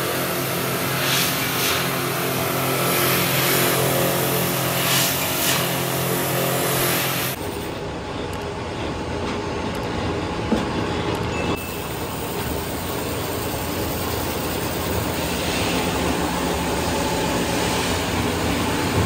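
Rotating drum grinding machine running steadily, a constant motor hum under a grinding hiss, with a few brief louder hisses as the clamped fork blanks meet the drum. The sound changes abruptly about seven seconds in, and there is a single short knock a few seconds later.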